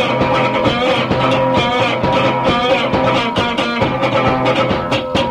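Rockabilly song in an instrumental stretch between vocal lines: electric guitar playing over a steady drum beat.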